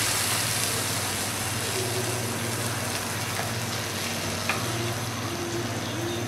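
Hot oil sizzling steadily in a pan of basmati rice and whole spices just covered with warm water, easing off slowly.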